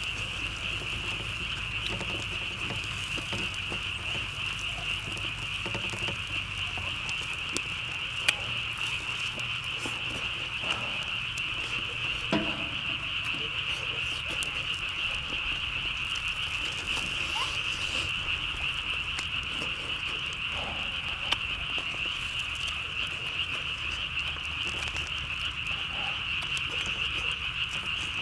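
A steady, high, continuous chorus of calling frogs, with a few short light clicks over it.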